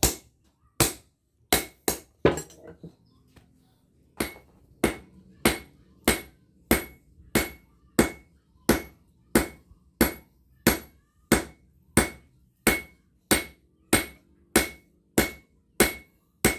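Hand hammer forging a red-hot bearing-steel blade on a small steel anvil, each blow giving a sharp metallic ring. A few uneven blows come first, then a short pause about two seconds in, then a steady run of strikes about every 0.6 seconds.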